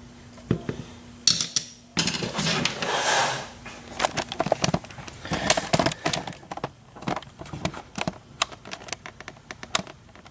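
Small metal clicks, clinks and a short rattle as pin tumblers and springs are tipped out of an ISEO euro profile lock cylinder and handled. The rattling comes about two seconds in; sharp clicks follow throughout.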